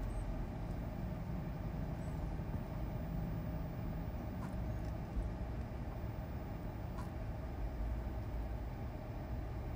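Steady low rumble of room background noise, with a couple of faint clicks about four and a half and seven seconds in.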